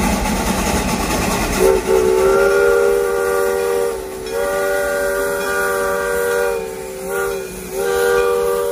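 Steam whistle of Dixiana #1, a Shay geared steam locomotive, blowing the grade-crossing signal: two long blasts, one short, then a fourth long one, several tones sounding together. Under a second and a half in, before the whistle, there is the steady steam hiss of the passing locomotive.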